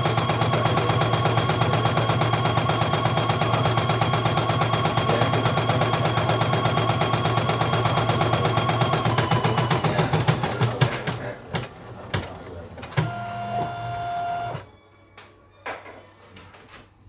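CNY E900 portable computerized embroidery machine stitching rapidly and evenly. About ten seconds in, the stitching slows and stops as the test design is completed. A short steady tone follows a couple of seconds later, then a few light clicks.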